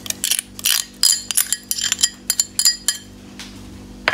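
A metal spoon clinking and scraping against a stainless steel pot as thick tomato and onion sauce is spooned in. There is a quick run of sharp metallic clinks with a brief ring over the first three seconds, then it goes quieter.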